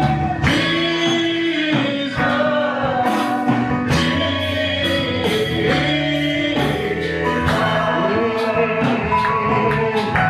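Live gospel worship music: a band with bass, keyboard and drums plays under sung vocals with a steady beat.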